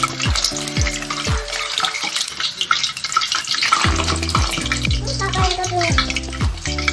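Egg-dipped tofu-and-chicken rolls wrapped in napa cabbage sizzling and crackling in hot oil in a wok as they fry.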